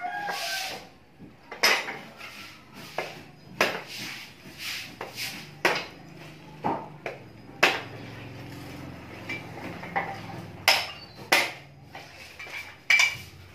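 Metal clanking and knocking from a scrapped welding machine's transformer being broken apart by hand to strip out its copper windings: about a dozen sharp strikes at irregular intervals, some with a short metallic ring.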